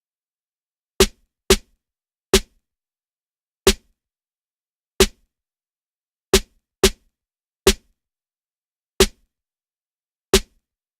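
A single short drum-machine hit from FL Studio's stock sounds, playing on its own: ten sharp hits in a syncopated pattern that repeats about every five seconds.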